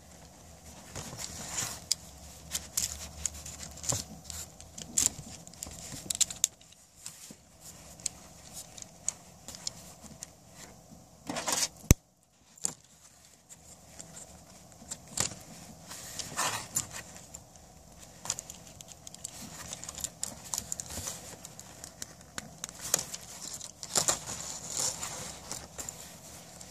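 Small metal clicks and jingling of a keychain's split ring, chain and lobster clasp being worked onto a small toy car, with one sharper click about halfway through.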